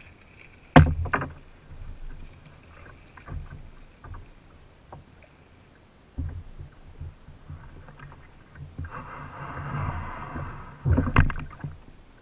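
Knocks against a kayak hull and splashing as a person climbs out of the boat into shallow, muddy water and wades beside it. A sharp knock comes about a second in, a stretch of sloshing water near the end, and the loudest knocks just after it.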